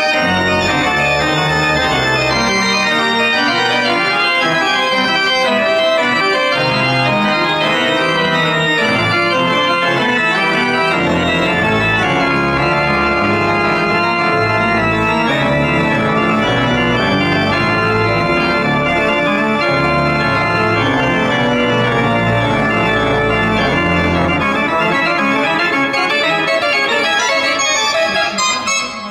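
Pipe organ played loud and full, with fast runs of notes in the hands over deep pedal bass notes.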